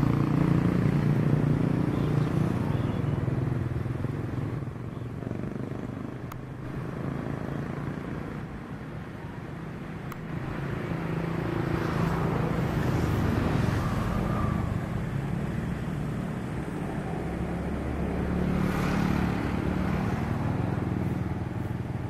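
Single turboprop engine of a KAI KT-1 Woongbi trainer, a Pratt & Whitney PT6A, running as the aircraft taxis. A steady low drone that fades somewhat, then swells again about halfway through and near the end.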